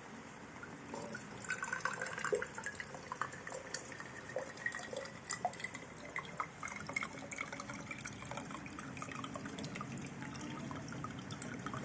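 Coconut water dripping and trickling into a container, in irregular drops starting about a second in.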